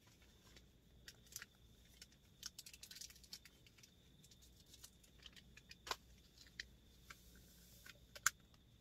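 Faint clicks and light rustling from hands handling an instant coffee sachet and a paper cup and stirring the coffee, with a few sharper clicks about six and eight seconds in. A faint steady high tone runs underneath.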